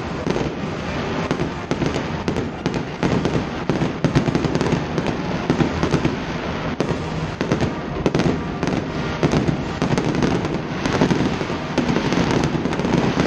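Aerial fireworks shells bursting in quick succession: a dense, continuous run of bangs and crackling.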